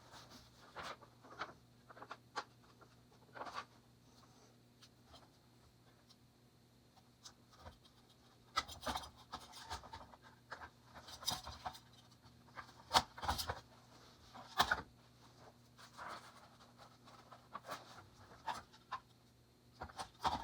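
Irregular scratching and light knocks, as of small objects being handled on a work surface, over a faint steady hum.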